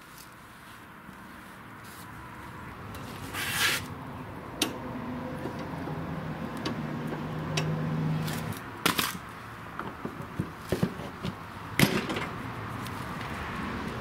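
Hands working a lawn tractor front wheel fitted with a new ball bearing onto its greased spindle, then spinning it: several sharp knocks and clicks of metal on metal and many smaller clicks, over a rushing noise that grows louder through the first half.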